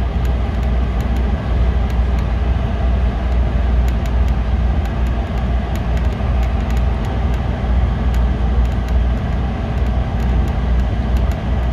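City bus driving along, a steady low rumble of engine and road noise with scattered faint rattling clicks.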